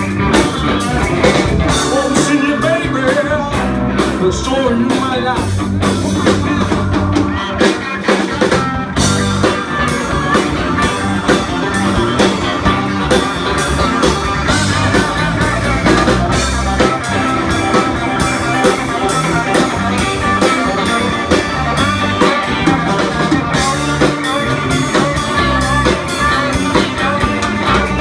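Live blues-rock band playing: electric guitar over bass and drums with a steady beat.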